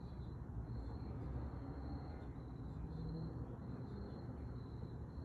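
Crickets chirping in regular high pulses over a low steady rumble.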